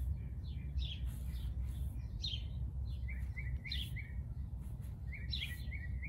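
A small bird chirping repeatedly, short high notes coming in quick little runs, over a steady low rumble.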